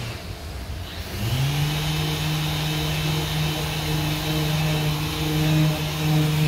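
Random orbital sander with dust extraction running down briefly at the start, spinning back up about a second in, then running steadily while sanding body filler on a car's quarter panel.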